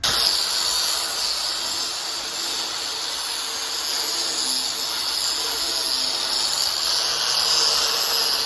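Grinder grinding steel, cutting a V along a crack that runs around an auger's round-to-hex adapter so it can be welded. It is a steady, high grinding hiss that starts abruptly and holds even throughout.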